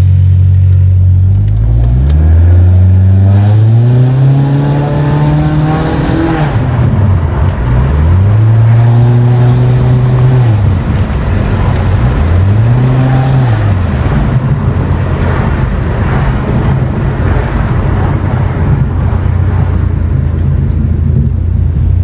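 Honda Accord 1.5-litre turbocharged four-cylinder engine revving: a steady hum climbs in pitch for a few seconds and drops sharply, then swells up and falls back twice more before settling to a steady hum.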